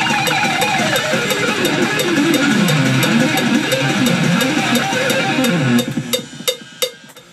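Distorted electric guitar solo of fast runs sweeping up and down in pitch, over a heavy metal backing track with a regular beat of sharp hits. The music cuts off a little under six seconds in, leaving a few fading hits.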